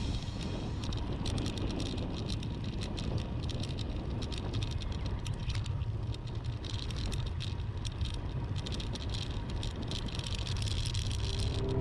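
Bicycle riding noise: wind rumbling on the microphone, with many small rattling clicks throughout.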